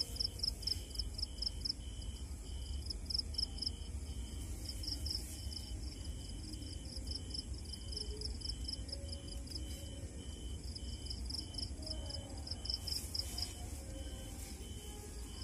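Crickets and other night insects chirping. One gives a fast, high pulsing trill that pauses now and then, and another a lower chirp repeating evenly a little over once a second, over a low rumble.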